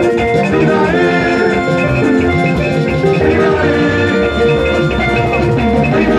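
Loud dance music with a steady beat and bright melodic lines over drums.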